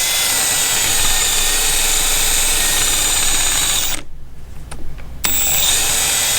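Milwaukee M12 Fuel 3/8" right angle impact wrench spinning freely with a swivel socket on the anvil and no fastener, a steady motor whine. It stops about four seconds in and runs again about a second later.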